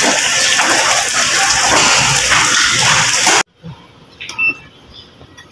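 A loud, even rushing noise that cuts off abruptly about three and a half seconds in. Then it is quiet apart from a single short, high beep from the hog scale's digital weighing indicator as its keypad is pressed.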